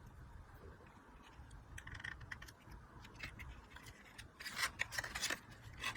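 Paper and cardstock pieces being handled at a craft table: light rustling, clicks and scrapes that begin about two seconds in and are busiest near the end.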